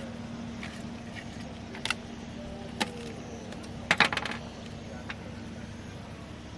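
A few short, sharp clicks and clinks of small hard objects being handled, with a quick cluster of them about four seconds in, over a steady low hum.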